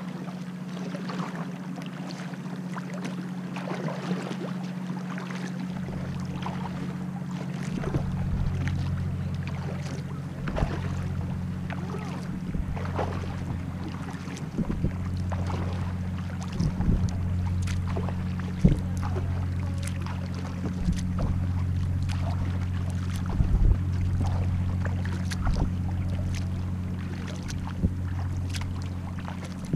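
Sea kayak being paddled across calm water: the paddle blade dipping in and dripping, with irregular small splashes and clicks. Under them runs a steady low hum that grows louder about six seconds in.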